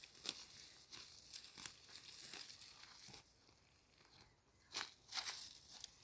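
Grass and plants being pulled and torn up by hand, an irregular run of rustling crackles and snaps, with a louder cluster near the end.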